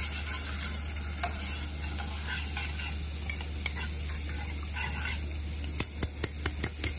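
Wire whisk beating a runny curd-and-flour mixture in a stainless-steel bowl, its wires clicking against the metal in a quick run of about five ticks a second near the end, with a few single ticks before. Underneath, a steady sizzle from spices frying in ghee and a low steady hum.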